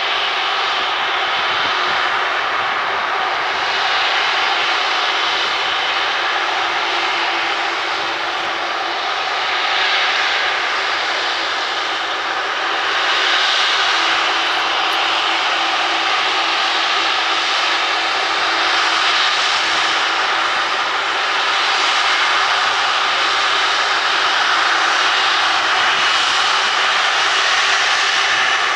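Jet airliner's engines running at high power, a loud, steady rushing noise with a held whine in it that grows a little louder about 13 seconds in.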